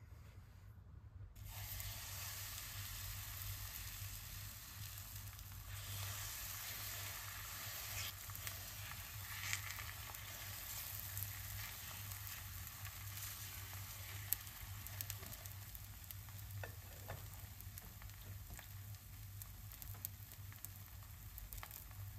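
Zucchini, tomato and egg batter sizzling steadily in hot oil in a nonstick frying pan, starting about a second and a half in as the batter goes in. A few light clicks come as it is spread out with a ladle.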